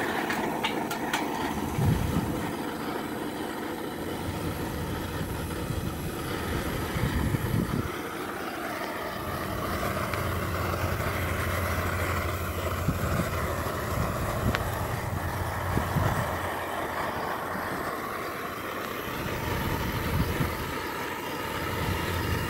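Outdoor gas wok burner running with a steady flame under the wok, while wind buffets the microphone in low, irregular gusts.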